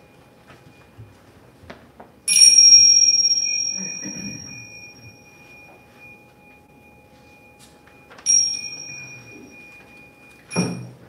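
A small hand-held bell struck twice, about six seconds apart, each strike ringing high and clear and fading away over a couple of seconds. A short knock comes near the end.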